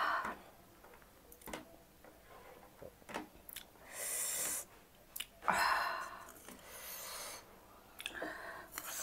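Close-up eating sounds of spicy black bean noodles eaten by hand: scattered small wet mouth clicks, with two longer hissing noises about four and six seconds in.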